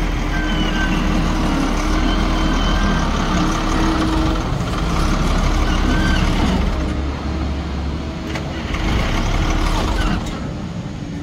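A motor vehicle's engine running, a loud, steady drone whose deepest hum eases off about seven seconds in.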